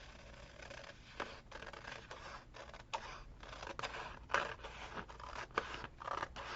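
Scissors cutting paper in a run of short, irregular snips, with paper scraping and rustling between them.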